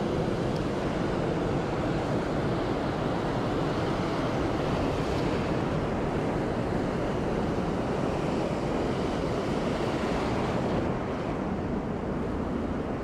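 Surf washing up and back over a sandy beach close by, with wind buffeting the microphone; the wash eases a little near the end.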